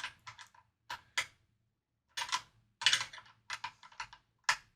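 Light clicking from a wrench working the Fender locking tuners' mounting nuts on a guitar headstock, in irregular clusters of short clicks.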